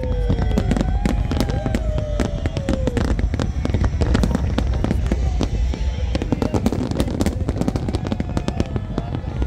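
Large fireworks display: many shells bursting at once, giving a dense, rapid crackling and popping over a continuous low rumble. A few falling tones come in the first three seconds.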